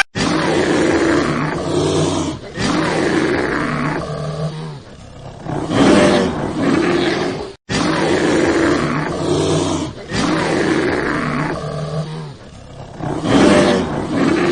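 Lion roaring and growling in long, deep, rough calls, loudest near the middle of each half. The same roaring sequence plays twice, with a brief cut just over halfway through.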